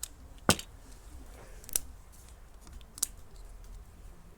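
Four sharp plastic clicks and knocks from Beyblade tops and parts being handled; the loudest comes about half a second in.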